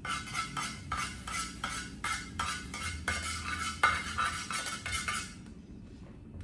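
Metal spatula scraping and tapping around a frying pan in quick repeated strokes, about three a second, stopping about five seconds in.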